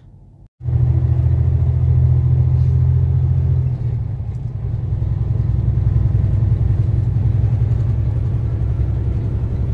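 Steady low drone of a semi-truck heard from inside the cab. It starts abruptly less than a second in, and its tone shifts slightly about four seconds in.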